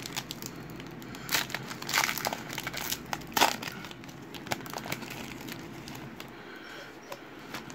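Foil wrapper of a trading card pack crinkling and tearing as it is pulled open by hand, with a run of sharp crackles about one to three and a half seconds in, then softer rustling.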